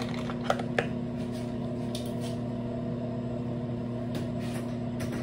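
Steady low electrical hum in a small room, with two light clicks about half a second and just under a second in.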